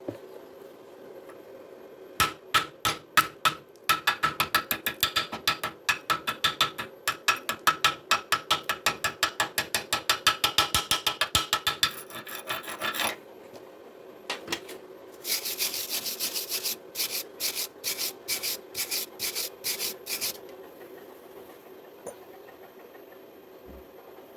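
Hand-tool strokes on steel reinforcing bar: rapid scraping or knocking, about four or five strokes a second, then after a short pause a run of sharper scraping strokes about two a second. The kind of chipping and brushing that cleans slag off a fresh stick weld.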